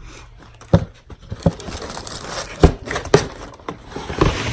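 Packaging crinkling and rustling with about five sharp knocks as a pair of sneakers and their box are handled.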